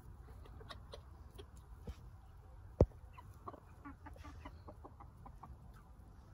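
Backyard hens clucking in short, scattered notes, with one sharp knock a little under three seconds in.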